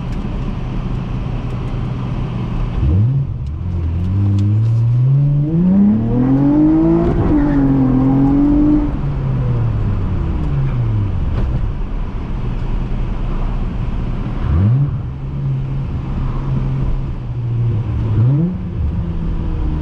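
Honda J32A3 3.2-litre V6 running while driving: it holds steady revs, climbs up through the revs from about four seconds in and eases back off, with quick sharp rev blips about three seconds in and twice near the end.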